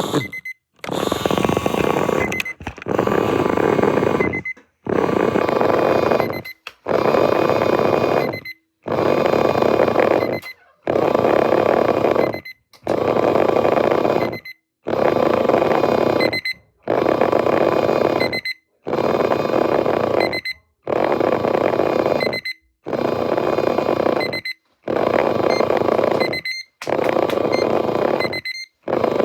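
Loud alarm sound effect going off in evenly repeating bursts, each about a second and a half long with short gaps between, about one every two seconds.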